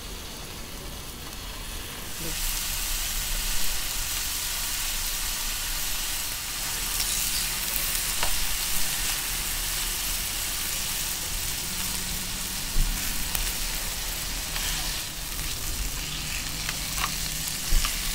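Pork slices sizzling on a round perforated grill pan. The sizzle grows louder about two seconds in, with a few sharp clicks of metal tongs against the pan.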